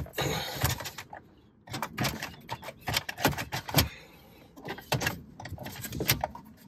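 The stock stereo head unit and its plastic dash bezel being worked loose by hand from a 2008 Toyota Tacoma's dash: irregular plastic clicks, knocks and scrapes, with a couple of brief pauses.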